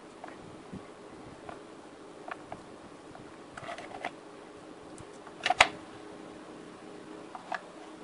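Electrical tape being unrolled and wound around a soldered ABS-sensor wire splice: light crackling and small scattered clicks, with one louder sharp click about five and a half seconds in.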